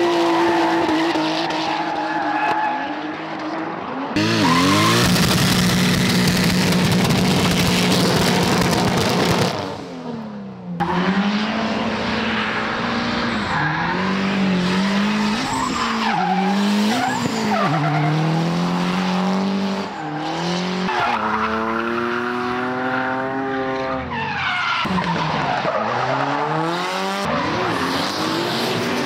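Drift cars sliding sideways with their rear tyres spinning: engines revving hard, their pitch repeatedly rising and falling as the drivers work the throttle, over the hiss and squeal of the tyres. The sound changes abruptly about 4 and 10 seconds in as different cars take over.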